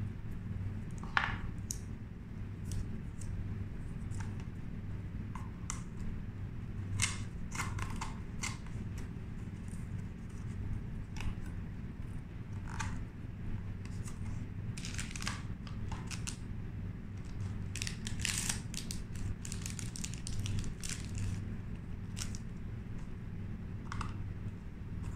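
Stiff white card of a folding insect trap being handled and a twist tie threaded through it: scattered short crisp rustles, creases and crinkles, busiest about halfway through and again a little later, over a steady low hum.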